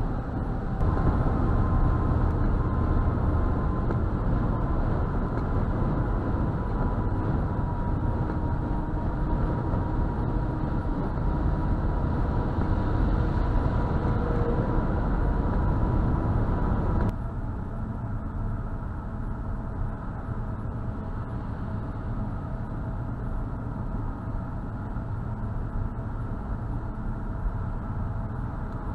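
Road and tyre noise with engine hum heard from inside a car's cabin at motorway speed. It is a steady rumble with a faint thin whine above it. About two-thirds of the way through it drops suddenly to a quieter, similar rumble.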